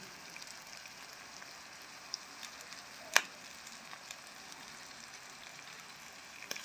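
Stuffed green peppers frying in coconut oil on low heat in a clay pot: a steady soft sizzle with small crackles. A single sharp click stands out about three seconds in.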